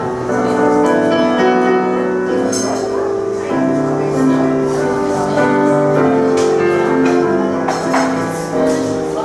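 Grand piano played in an improvisation: held chords and notes ringing on one after another, each changing about once a second.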